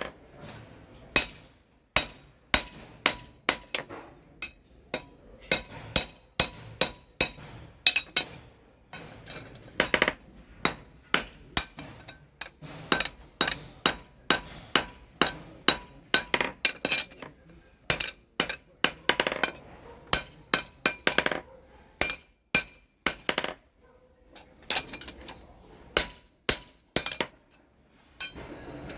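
Hammer blows on steel at an anvil, forging a billhook machete blade: sharp ringing strikes in irregular runs of about one to two a second, with brief pauses between runs.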